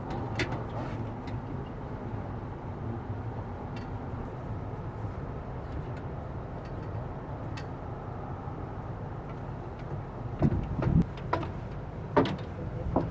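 Steady road and engine rumble heard inside a moving car's cabin, with several short knocks near the end.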